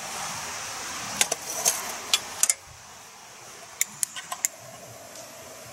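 Metal clicks and rattles from a hurricane lantern's wire frame and glass globe being handled: two short clusters of sharp clicks, one about a second in and another near four seconds in. A steady hiss runs under the first clicks and stops about two and a half seconds in.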